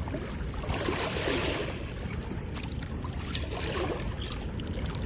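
Steady rushing water from a spillway's flow, with a brief louder rush about one to two seconds in.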